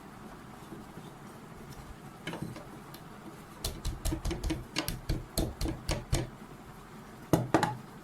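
A quick run of about ten sharp clicks or taps, then two louder knocks near the end, as objects are handled.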